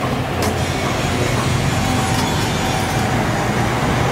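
Steady low rumble of a gas burner under a wok, mixed with street traffic. A short metal clink comes about half a second in as the wok's metal lid is lifted off.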